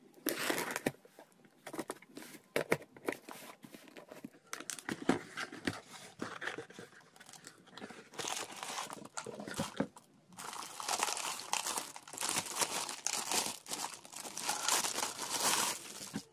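Cardboard parcel being unpacked by hand: packing tape and a paper label torn off in short, irregular rips, then a plastic wrapper crinkling, more continuously in the second half, as the plastic holder comes out.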